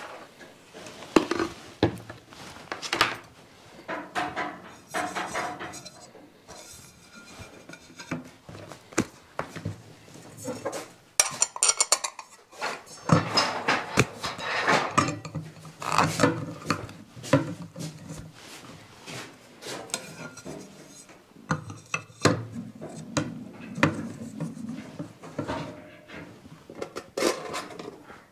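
Metal parts (round steel mounting plates, a bolt and small screws) being handled and set down on a wooden workbench, with irregular knocks and clatters.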